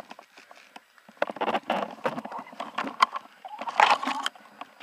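Footsteps and rustling of clothing, gear and grass as the player moves forward, heard on a head-mounted camera. They come as an uneven run of knocks and scuffs starting about a second in, loudest near the end.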